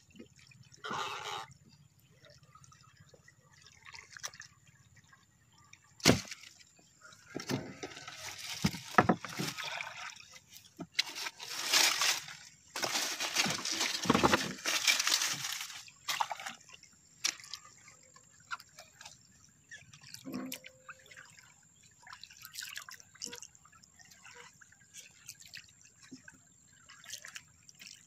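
Water sloshing and dripping as a gill net and fish are handled in a wooden boat, with a sharp knock on the wood about six seconds in and louder bursts of splashing and rustling in the middle.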